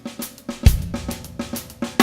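Acoustic drum kit playing a 6/8 groove built on the Swiss Army triplet rudiment: a steady run of snare and hi-hat strokes, with a bass drum kick about two-thirds of a second in and a cymbal crash ringing out at the very end.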